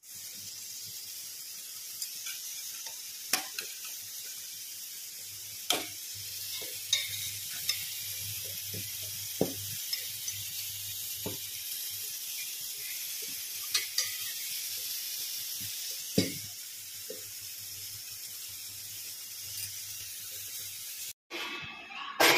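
Food sizzling and simmering in steel pans, with a metal ladle stirring and clinking against the pan now and then, over a faint low hum.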